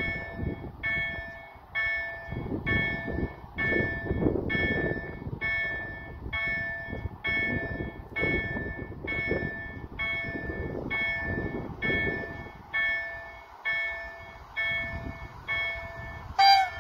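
Level-crossing warning bell ringing steadily, an electronic ding about twice a second that signals an approaching train, with wind buffeting the microphone. Near the end a short, loud, high tone sounds once.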